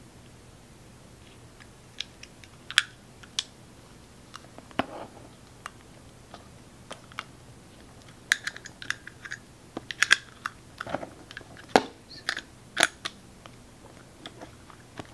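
Small sharp plastic clicks and taps from handling an Audi flip-key fob's shell and seating a coin-cell battery in it; a few scattered clicks at first, coming thick and fast from about eight seconds in.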